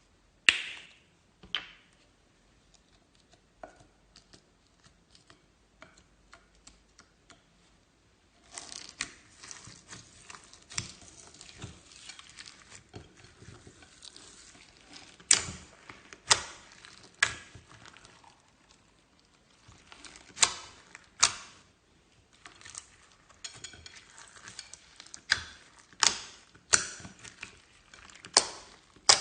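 Slime being squished and pressed by hand: irregular wet clicks and sharp pops of trapped air, with a stretch of continuous crackling about a third of the way in.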